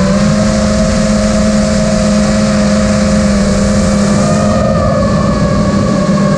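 FPV racing quadcopter's four XING X2207 2450KV brushless motors and propellers whining steadily in flight, over a rush of wind and prop wash; the pitch shifts a little with the throttle.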